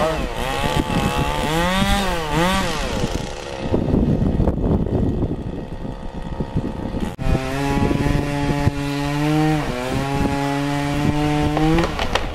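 Chainsaw revving up and down, then a rough, noisy stretch as it cuts into wood. After a sudden break about seven seconds in, an engine runs at a steady high pitch, dipping once briefly before cutting off near the end.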